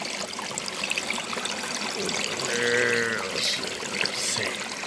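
Water running and splashing steadily through a small gold sluice box over V-mat carpet and expanded metal riffles. A man's short voiced hum comes about two and a half seconds in.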